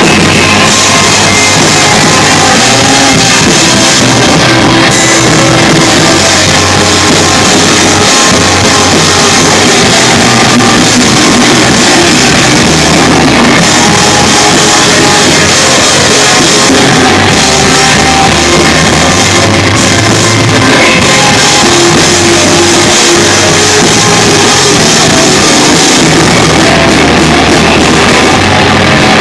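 Live rock band playing loud, heavily distorted music with electric guitars and a drum kit, recorded close and near clipping.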